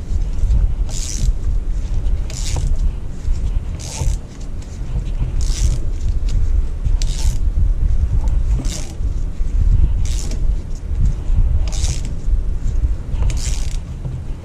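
Hand ratchet being worked in short strokes, a quick burst of ratcheting clicks about every second and a half, over a steady low rumble.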